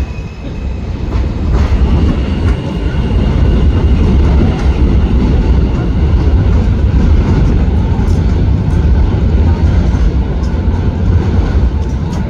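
R160 subway train pulling out of an elevated station and running away along the steel viaduct: a loud, steady rumble that builds about a second and a half in.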